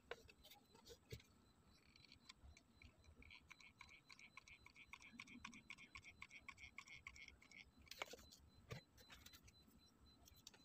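Faint, quick, even clicking from a hot glue gun's trigger feeding a glue stick while a bead is run along cardboard. It goes on for about five seconds, then a couple of sharper clicks follow.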